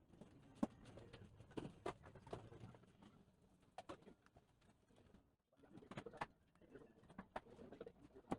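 Faint, scattered clicks and light taps from handling the laptop's plastic and metal parts during disassembly, with a quiet pause a little past the middle.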